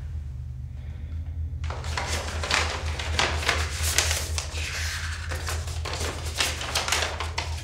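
Paper rustling and crinkling as a letter is pulled out of a paper envelope and unfolded, starting about two seconds in, over a steady low hum.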